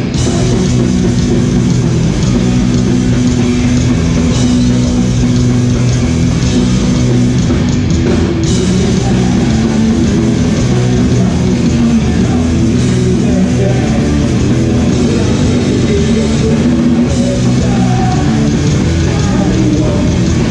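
Hardcore punk band playing live, loud and dense, with distorted electric guitars, bass and drums kicking in suddenly together.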